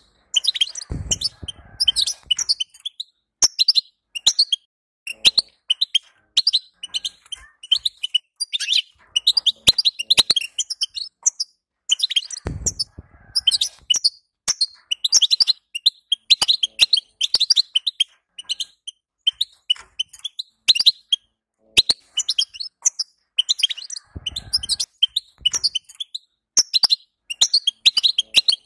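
European goldfinch chattering: phrases of rapid, high twittering call notes with short pauses between them, the kind of goldfinch chatter used to stir a male goldfinch into song. A low thud sounds under it three times.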